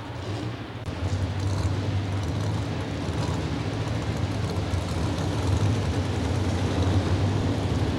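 Engine of a super stock four-wheel-drive pulling truck running steadily, a little louder from about a second in.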